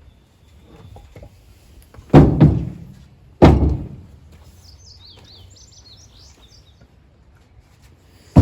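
Car doors shutting with heavy thunks, one about two seconds in, another a second later and a third at the very end. Between them a small bird chirps in a quick run of high notes.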